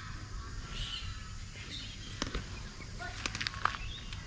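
Sticks of firewood knocking and clattering as they are handled and laid into a fire pit, with a cluster of sharp knocks a little past halfway. Birds chirp in the background over a low wind rumble on the microphone.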